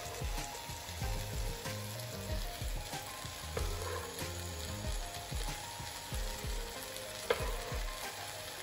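Egg, onion and tomato frying in a non-stick pan with a steady sizzle, with a few light knocks of a knife cutting salami on a wooden board and one sharper click about seven seconds in.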